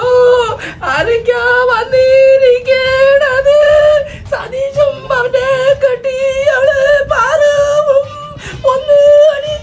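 A mourner wailing a sung funeral lament: one high voice held on a wavering note in long drawn-out phrases, with short breaks for breath about four seconds in and near the end.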